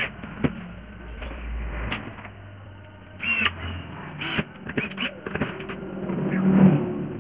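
Cordless drill driving screws into the wooden battens of a shipping crate: short bursts of the motor's whine with clicks and knocks between them, and a longer, lower run near the end, the loudest part.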